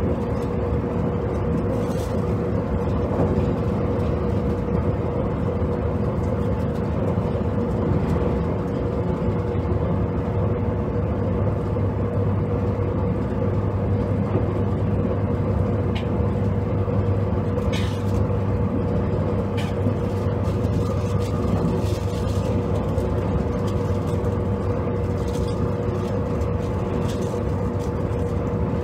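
JR Kyushu 783 series electric multiple unit running at speed, heard from aboard motor car KuMoHa 783-7: a steady rumble with an even hum and a high steady whine. A few short clicks sound now and then.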